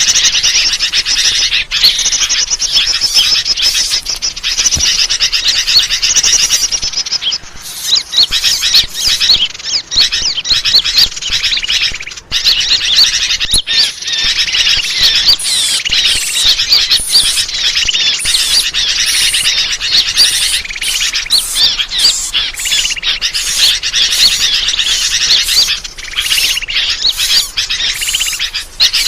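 Dense, continuous high-pitched chirping and twittering of many small birds, a bird-lure call recording meant to draw birds in. Rapid chirps overlap with no pauses, easing briefly a few times.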